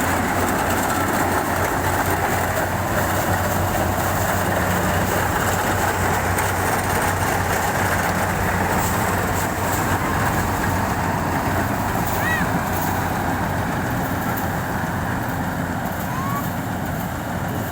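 Engine of a rice harvesting machine running steadily at working speed, with a constant hum and mechanical clatter.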